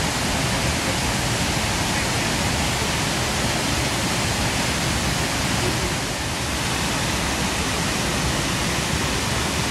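Rushing water of a river waterfall and rapids: a steady, even rush of white water.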